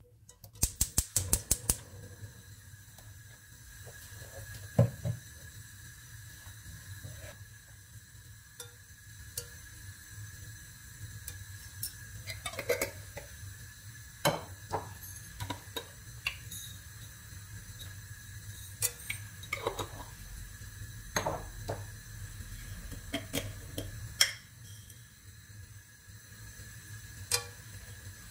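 Kitchen handling sounds at a nonstick cooking pot: a quick run of clicks about a second in as oil is poured from a bottle, then scattered light clicks and knocks as whole cardamom pods and cloves are dropped into the oil and spice jars are handled, over a steady low hum.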